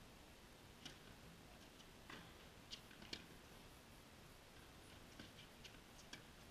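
Faint, sharp pops of a tennis ball struck by rackets and bouncing on the court during a rally, about eight irregular ticks over near-silent room tone.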